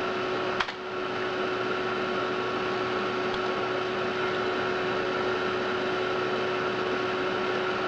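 Amiga 4000's hard drive and power supply running, a steady whirring hum with a constant whine, with a single sharp click about half a second in.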